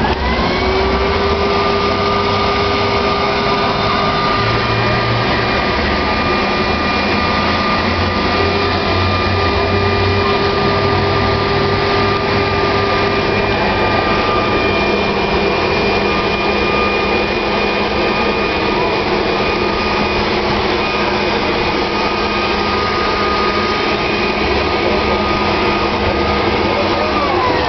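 Electric air blower motor spinning up at the start, running steadily with a whine over rushing air, then winding down near the end.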